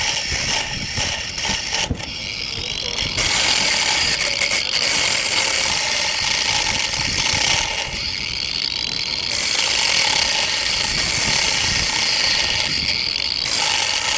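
Handheld angle grinder cutting into a bicycle lock: a harsh, steady metal-grinding noise that eases off briefly a few times and bites in again.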